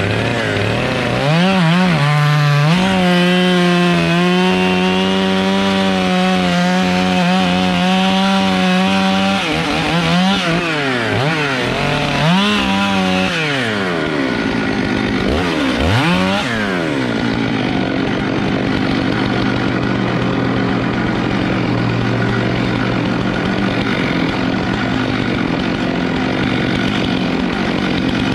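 Stihl 661 C two-stroke chainsaw cutting through a log at full throttle, its engine note holding high and steady under load. After that the throttle is released and blipped several times, with the pitch falling and rising, and the saw runs on at a lower, steady speed.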